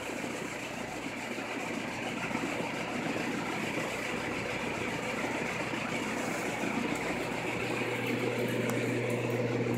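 Belt-driven whole-house fan in a wooden box running steadily on low speed: a steady rush of air over a low motor hum.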